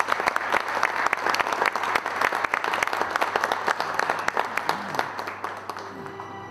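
Seated audience applauding, a dense patter of many hands clapping that dies away over the last second or so.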